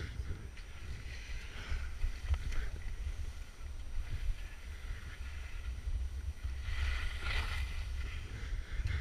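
Wind buffeting the camera microphone in a low rumble, over the hiss and scrape of skis sliding on snow, which swells about seven seconds in.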